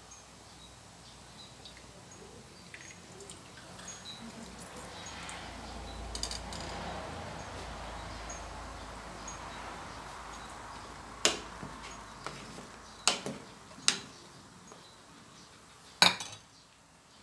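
A pot of soup boiling with a soft steady hiss that swells in the middle. In the second half come a handful of sharp clinks of kitchenware, the last one the loudest.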